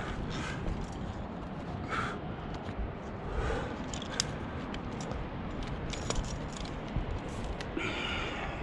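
Wind rumbling over the head-mounted camera's microphone, with climbing hardware on the harness clinking now and then, and a few short harsh calls about two seconds in and again near the end.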